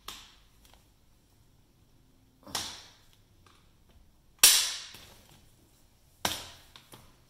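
Phillips screwdriver prying at the spring button inside a monkey-bar pole to pop the spring clip out: four sharp metal clicks and snaps, the loudest about four and a half seconds in.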